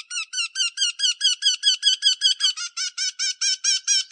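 Eurasian wryneck calling: a fast series of repeated, identical high notes, about five a second, with a short break about two and a half seconds in.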